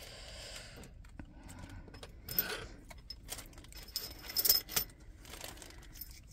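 Small metal parts clinking together as they are handled, with light crinkling of plastic bags; a cluster of sharper clinks comes in the second half.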